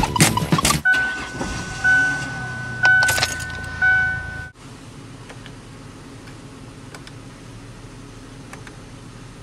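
Car interior warning chime: a steady high tone that swells about once a second, over a low rumble, with a sharp click near the middle. It cuts off suddenly after about four and a half seconds, leaving a quiet steady cabin hum. The opening second holds the tail of percussive music.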